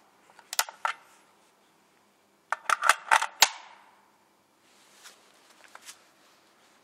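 Sharp mechanical clicks and clacks from handling a Real Sword Type 56 airsoft rifle: a couple under a second in, a loud quick cluster of about six in the middle, then a few fainter ticks.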